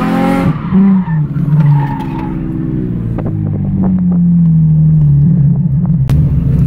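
Nissan 350Z's 3.5-litre V6 engine heard from inside the cabin on a drift run. Revs rise and drop sharply in the first two seconds, then the engine note slides slowly down and levels off.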